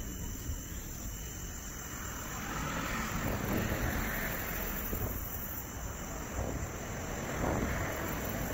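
A passing motor vehicle: a broad rushing noise that builds about two and a half seconds in and stays up, over a steady chirring of crickets.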